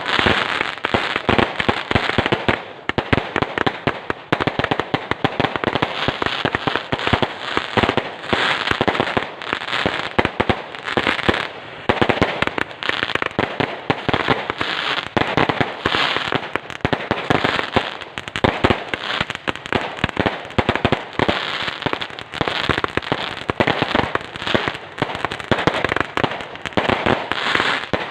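Fireworks going off in a rapid, unbroken barrage of bangs and crackles, many reports each second.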